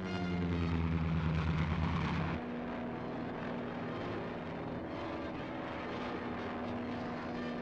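Propeller airplane engine droning as a film sound effect. For about the first two seconds it is louder and its pitch drops as the plane passes. It then cuts to a steadier, quieter drone heard from the cockpit.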